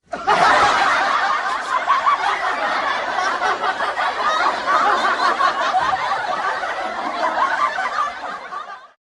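A crowd of many people laughing together, the overlapping voices forming a dense, steady mass that fades out near the end.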